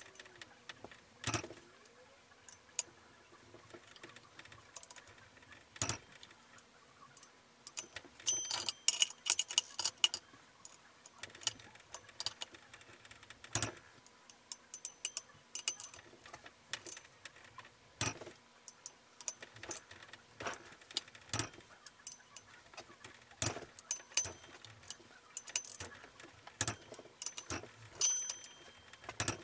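Ratchet and torque wrench working the flywheel bolts on an engine crankshaft: sharp single metallic clicks every few seconds, with a run of rapid ratchet ticking about a third of the way in.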